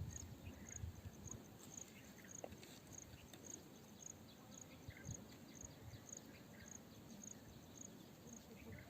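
Faint insect chirping: a short, high chirp repeated evenly about two and a half times a second, over near-silent background.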